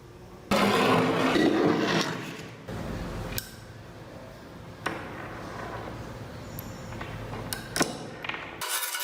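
Hand work on the metal parts of an old, rusty vegetable grater. It starts with about two seconds of harsh scraping noise, then a few scattered knocks and clinks.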